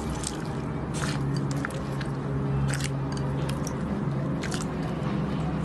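Slime being squished and pressed by hand, giving irregular wet crackles and squelching clicks, over a low steady hum.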